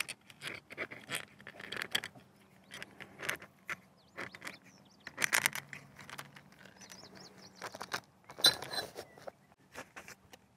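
Plastic side panels being pried and pulled off an Accuracy International AT rifle's forend, with the rifle handled on its rest: irregular clicks, scrapes and rattles of plastic against metal, the loudest about five and eight and a half seconds in.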